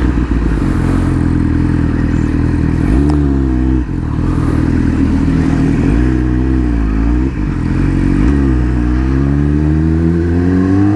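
2019 Yamaha R6's inline-four engine pulling the bike along, its revs rising and falling with the throttle several times, then climbing steadily near the end.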